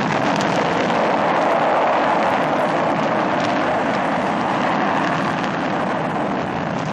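Space Shuttle lifting off: its main engines and solid rocket boosters firing give a loud, steady rumbling roar that eases slightly near the end.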